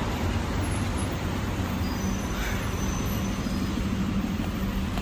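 City street traffic noise: a steady rumble of passing vehicles, with a steady engine hum coming in about a second and a half in.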